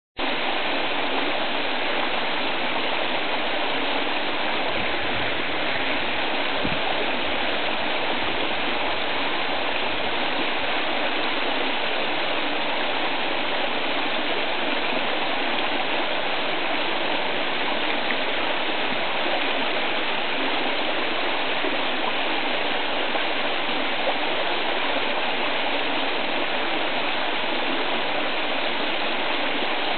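Shallow, rocky river running steadily over stones in riffles.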